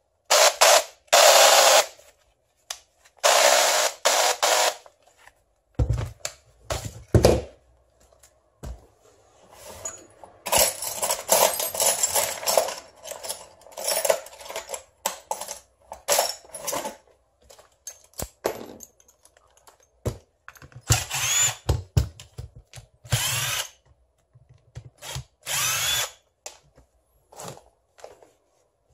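Cordless drill motor running in short bursts of one to a few seconds, several times, as the trigger is squeezed and released. Low knocks and clicks of the tool being handled on the workbench come between the runs.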